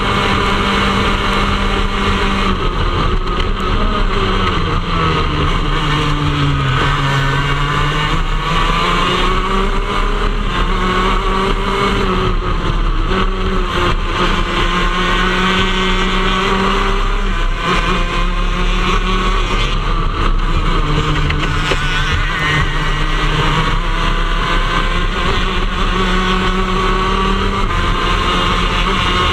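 Onboard sound of a shifter kart's 125cc two-stroke single-cylinder engine running hard at racing speed, its high-pitched note holding near the top of the revs. The pitch drops and climbs back a few times as the kart slows and accelerates again for corners.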